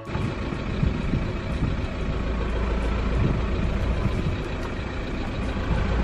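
Car running along a lane: steady engine and tyre noise with a low rumble, heard from inside the car.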